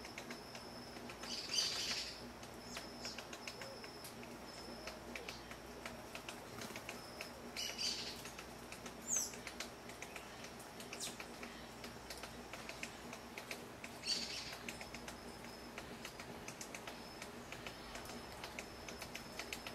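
Quiet woodland background with birds calling: a few short high calls several seconds apart and one brief sharp falling whistle about midway, over a faint on-and-off high steady tone and scattered light ticks.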